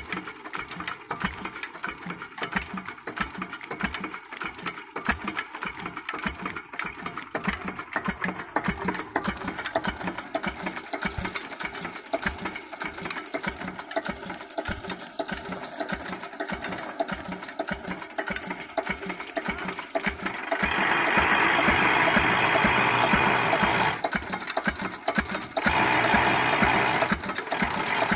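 Single-cylinder stationary diesel engine with twin flywheels running steadily with an even, regular beat while driving flat belts. A louder, steady rushing noise joins it from about twenty seconds in for a few seconds, and again briefly a little later.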